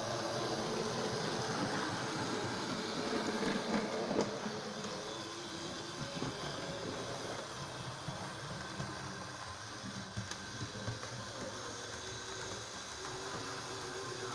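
Wrenn N7 model tank locomotive and a second tank engine pulling coaches on OO-gauge track: a steady motor whirr and wheel rattle, with a few sharper clicks as the wheels cross rail joints and points.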